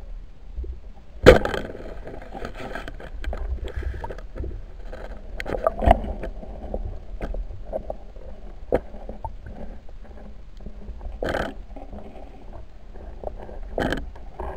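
Muffled underwater sounds of a spearfishing strike, with a low rumble throughout. One sharp snap about a second in is the loudest sound, followed by scattered knocks and clicks.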